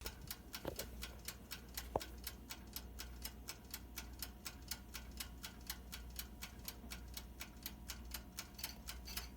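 Mechanical wind-up timer of a BLACK+DECKER toaster oven ticking steadily, about five ticks a second, with one louder click about two seconds in. The timer still runs, but the oven no longer heats.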